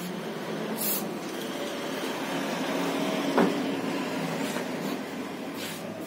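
Aerosol lubricant sprayed through a straw onto an alternator's shaft to free the rotor, in short hisses: one about a second in and another near the end. A single knock sounds around the middle.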